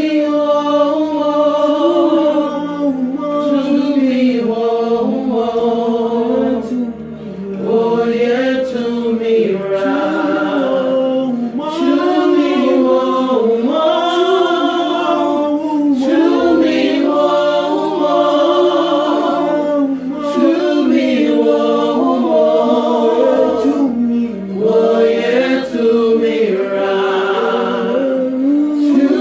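A vocal group singing a gospel song together in harmony, a cappella.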